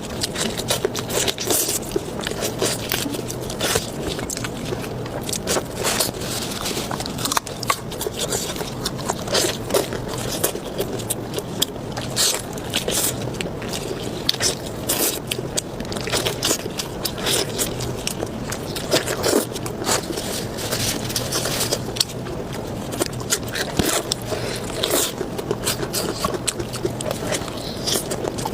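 Close-miked eating of spicy pork belly: continuous chewing and biting, with many small clicks and crunches.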